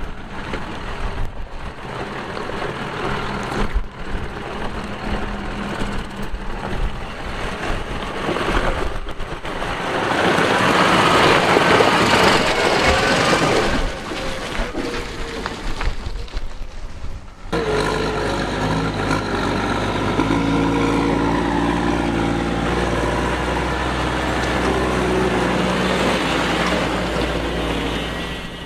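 Farm tractors driving past on a wet road: engine running with a rush of tyre noise that swells for a few seconds around the middle as one passes close. After a sudden change about two-thirds in, a New Holland tractor's engine runs with a steady drone.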